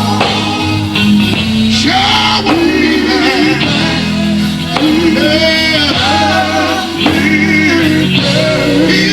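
Live gospel music: drawn-out singing voices over electric guitar and a steady bass line.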